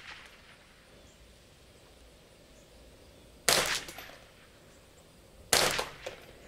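Two shots from a Kidd Super Grade .22 LR semi-automatic rifle, about two seconds apart, each a sharp crack with a short echoing tail. They are sighter shots placed beside the playing-card target to check the point of impact in strong wind.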